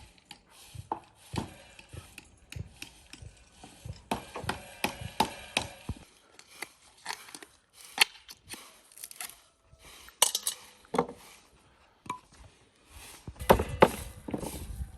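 Irregular knocks, taps and clinks of hard objects being handled or struck, with a denser run of louder knocks near the end.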